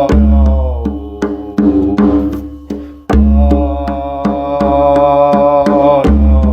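Meditative chant-like song: a held, many-harmonic melody line that slides down in pitch twice, over a deep steady drone and a light, regular percussion beat.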